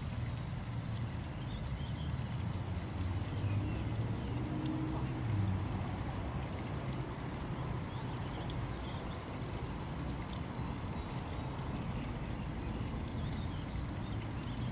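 Steady outdoor background noise: a low, even rumble with faint short high chirps now and then.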